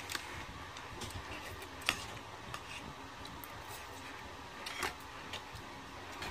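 Scattered light clicks and scrapes of spoons on plates and shrimp being peeled by hand, over a steady background hiss; the sharpest clicks come about two seconds in and just before five seconds in.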